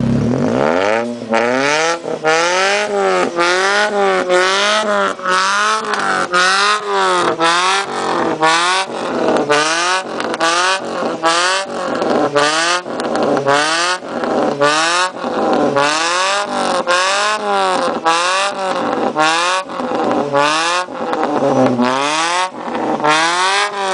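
Ford Ka engine revved over and over through an aftermarket sport exhaust, its note climbing and dropping about once a second in quick throttle blips. The exhaust rumbles loudly, with a raspy edge at the top of each rev.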